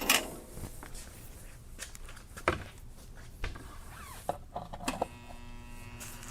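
A few clicks and knocks, then about five seconds in the transformer of a vintage soldering station starts humming steadily once it is powered up: a buzzing mains hum, making a lot of noise.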